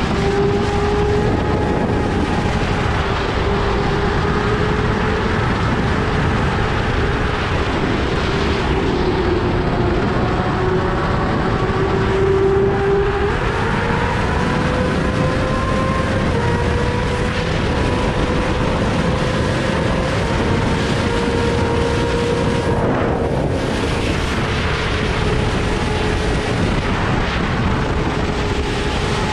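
Yamaha R6's inline-four engine through an Akrapovič full-system exhaust, running hard and steady as the bike rides at speed, with wind rush over it. The engine pitch climbs a little about halfway through.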